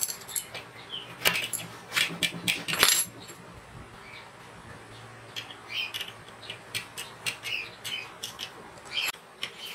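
Small steel parts clinking and clicking as a pin is fitted by hand into the hinged steel tensioner arm of a homemade belt sander: a string of sharp metallic clicks and taps, the loudest in the first three seconds.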